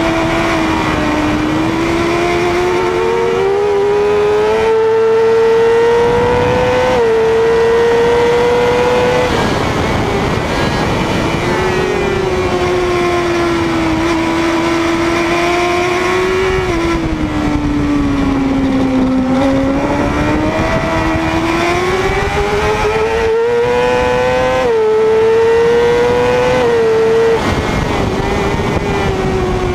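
600cc supersport motorcycle engine at race pace, heard from an onboard camera. The revs climb and cut back sharply at quick upshifts about seven and nine seconds in, fall away in the middle, then climb again with two more upshifts near the end.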